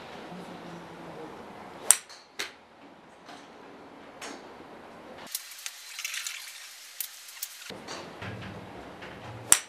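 A golf club striking a teed golf ball twice, each a sharp, loud click, about seven and a half seconds apart, with fainter clicks and knocks in between.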